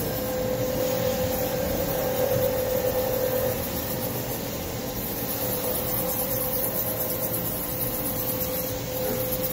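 CNC vertical machining centre running, with a steady whine over the machine's hum as the table is jogged along its axis under power. The whine is strongest in the first few seconds, eases, then picks up again.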